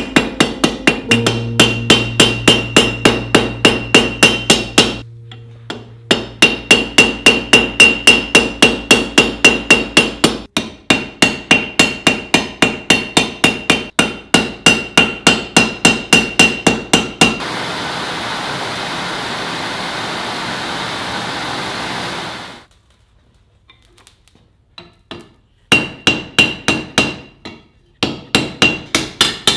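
Hand forging: a hammer striking steel on an anvil in a fast even rhythm, about three blows a second, each with a bright ringing tone. Partway through, the hammering stops and a steady hiss runs for about five seconds. After a short quiet, the hammering starts again near the end.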